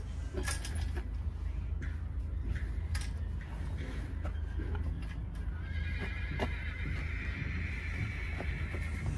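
A horse whinnying in one long call lasting about three seconds, starting a little past the middle, after a few sharp knocks.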